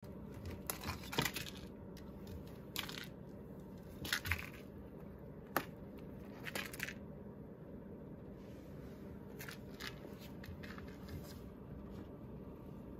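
A cat wrestling a fuzzy toy mouse while rolling on its back: irregular scratches and scuffs of its claws and body against a wooden floor and cabinet edge, with a few sharp clicks, the sharpest about five and a half seconds in.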